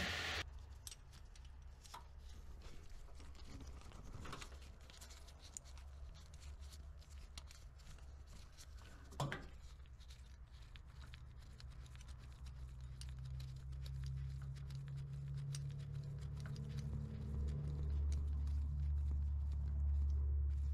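Faint handling sounds of hands and tools working at an engine's spark plug hole: scattered light clicks and rubbing, with one sharper click about nine seconds in. A low rumble builds through the second half.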